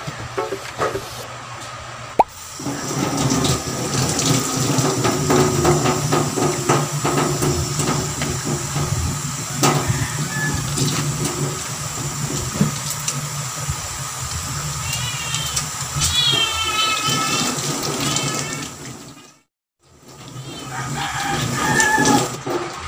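Water from a kitchen faucet running and splashing into a stainless steel sink as hands are lathered and rinsed under it. It is steady, with a break of about a second near the end.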